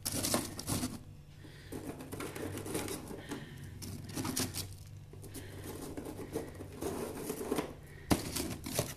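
Crisp baked wheat-flour biscuits being shuffled and pressed into a lined storage container by hand: irregular dry clicking and scraping of biscuit on biscuit, with the liner crinkling and one sharper click near the end. A faint steady low hum runs underneath.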